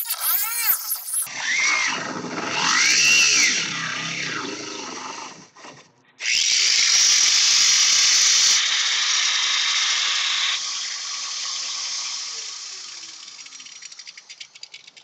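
Power tool running under load, its pitch swinging up and down. It cuts out about five and a half seconds in, starts again loud, then slowly dies down over the last few seconds, sounding like it's getting tired.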